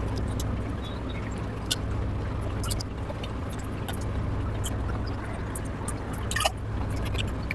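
Close-up wet chewing and mouth sounds of someone eating oily curry with puri: many scattered short clicks and smacks, a cluster of louder ones near the end, over a steady low hum.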